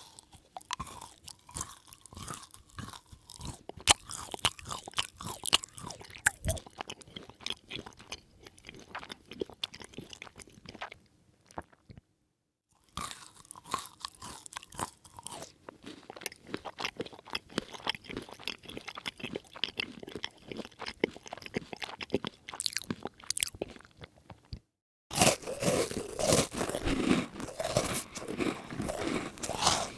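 A person chewing and biting crunchy food, close up, in three separate takes split by short pauses; the last take is louder.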